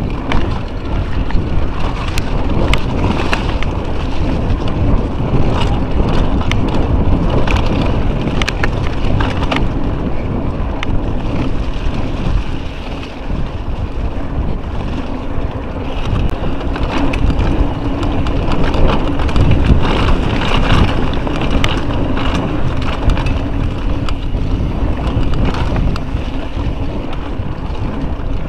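Wind roaring over an action camera's microphone on a fast mountain-bike descent, with the bike clattering and knocking over rough dirt trail throughout.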